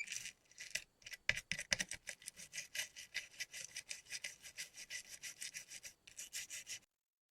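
A small brush scrubbing a laptop circuit board around freshly soldered connector pins to clean it, in quick back-and-forth strokes about four a second that stop suddenly near the end.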